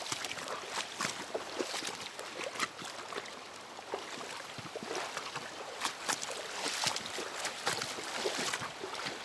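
Boots wading through shallow floodwater: irregular splashes and sloshing over a steady rush of water.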